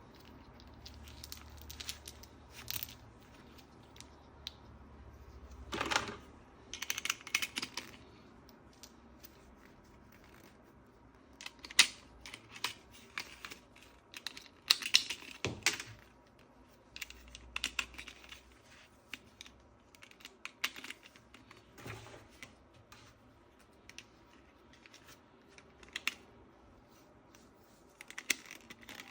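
Irregular clicks, taps and crackly rustles of hands handling small hard objects and packaging, with louder clusters about six seconds in and again between twelve and sixteen seconds.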